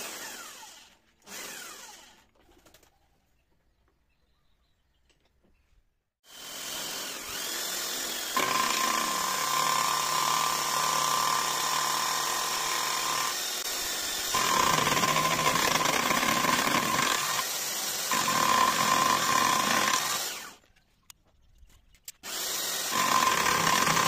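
A motor-driven milling cutter in a drill chuck, mounted on a lathe's carriage, spinning and cutting a metal bar held in the lathe chuck. It is a steady machine whir with a high, steady whine that comes and goes in stretches. After two brief bursts at the start, it runs steadily from about six seconds in, stops for about two seconds, and starts again near the end.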